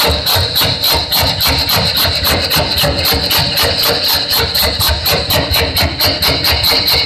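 Vocal mimicry of a steam train: a performer's mouth-made chuffing into a microphone, a fast even rhythm of about five to six chuffs a second that quickens slightly, over a steady high hiss.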